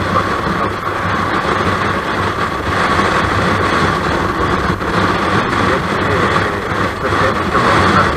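Kawasaki Versys 650's parallel-twin engine running steadily at highway cruising speed, with wind rushing over the bike-mounted microphone.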